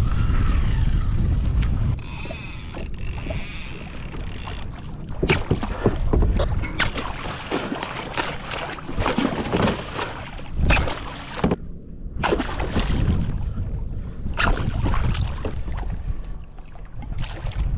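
Wind buffeting the microphone and water splashing around a fishing kayak, with a run of sharp splashes and knocks in the middle as a hooked fish thrashes alongside and is gaffed.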